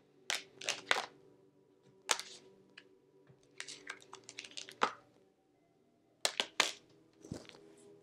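Tarot cards tossed down and slid across a tabletop: a run of short, sharp card slaps and clicks, a few in the first second, a quick cluster around the middle and two more near the end.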